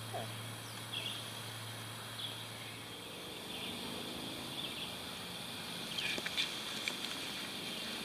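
Quiet outdoor background: a steady hiss with a low hum and a few faint, short, high chirps scattered through.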